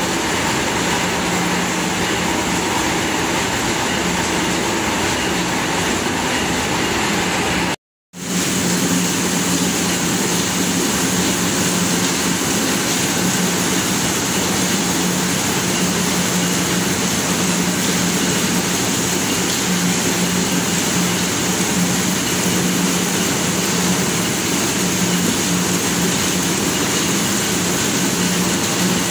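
Corn mill running steadily while grinding corn: a loud, even hum over a constant rushing noise. The audio cuts out completely for a moment about eight seconds in.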